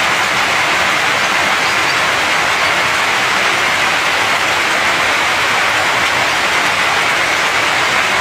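Heavy rain pouring steadily, an even rushing hiss with no beat, used as a sound effect in the track.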